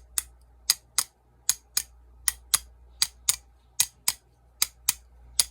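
Sharp metal clicks in a steady rhythm, about two to three a second and roughly in pairs. They come from a tool tapping and working at the old rubber bushing and washers to free them from the outdoor tap's valve stem.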